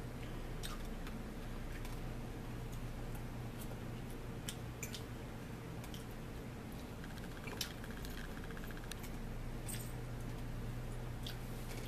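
Quiet eating sounds: scattered small clicks of a fork and knife against a plate, with soft squishy mouth sounds of chewing, over a steady low hum.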